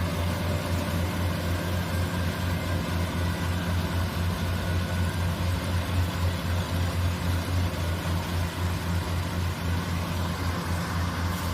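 Daedong DSC-62G combine harvester's diesel engine running steadily, a low, evenly pulsing drone.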